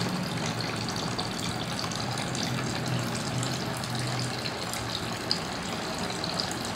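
A thin stream of water pours steadily out of a hole in a 2-litre plastic bottle and splashes onto the table below as the bottle is drained.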